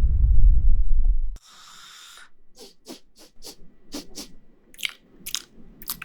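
A loud, low snore-like rumble cuts off suddenly about a second and a half in. Then comes a short hiss, followed by a run of soft, crisp ASMR trigger sounds: clicks and crunches, a few a second.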